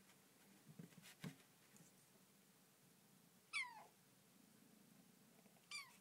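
Bengal kitten meowing twice: a short meow that falls in pitch about three and a half seconds in, and a briefer one near the end. A couple of light knocks come about a second in.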